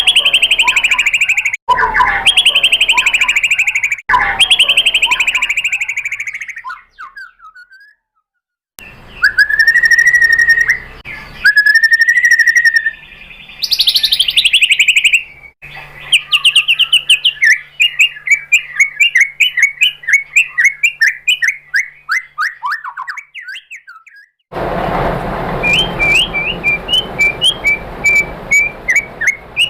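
White-rumped shama (murai batu) singing: loud, varied whistled phrases and rapid trills of repeated notes. Several separate recordings are spliced together with abrupt cuts and a brief silence about eight seconds in.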